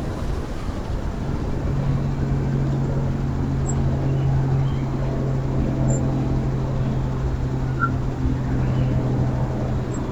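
A steady low mechanical drone, like an engine or motor running, with a few faint, short bird chirps over it.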